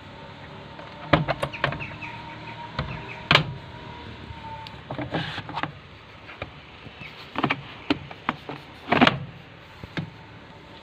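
Irregular knocks, clicks and clunks from an old Beko BKY 2313 C washing machine with a rusted drum bearing, over a faint steady whine.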